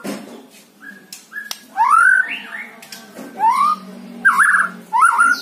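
White-rumped shama singing: a series of clear whistled phrases that sweep upward, with short sharp clicks between them.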